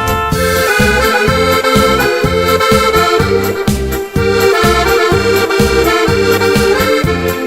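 Instrumental background music: a melody over a steady bass beat of about two to three pulses a second.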